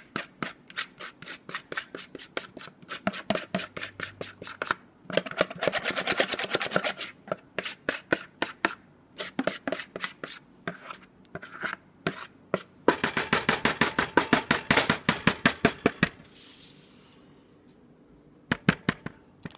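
Spoon scraping thick melted chocolate mixture out of a mixing bowl in quick repeated strokes, several a second, with two longer runs of fast scraping. The scraping pauses near the end, then a few last strokes.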